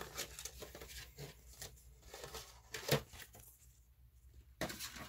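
Faint crinkling and rustling of a foil Pokémon booster pack wrapper being handled and opened, in short scattered bursts, with a louder rustle about three seconds in and another near the end.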